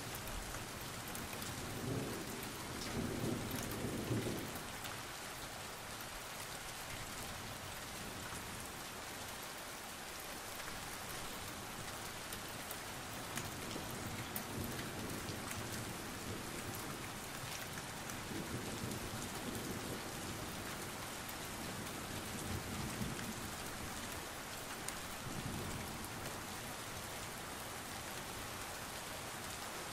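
Steady, even rain hiss, falling on hard wet surfaces. Low rumbles of a second or two come through it several times, the loudest about two to four seconds in.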